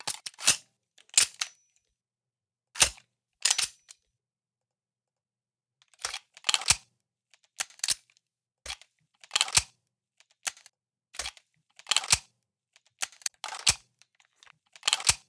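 Gunshot sound effects playing back one after another: sharp single shots with short tails, some in quick pairs, at irregular gaps with dead silence between.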